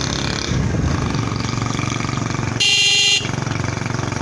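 Vehicle engine running steadily, with one loud horn blast about two and a half seconds in, lasting about half a second.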